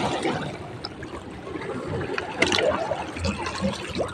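Water splashing and trickling, uneven, with a louder moment about two and a half seconds in.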